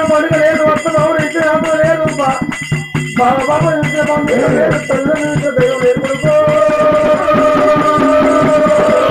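Oggu katha folk music: a wavering sung melody, held on long notes in the second half, over a fast, busy beat of hand drum and percussion. The music thins out briefly about three seconds in.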